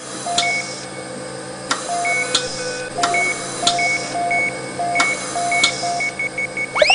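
A string of short electronic beeps at an uneven pace over a steady low hum, with a few faint clicks between them. Just before the end, a whistle-like tone glides upward.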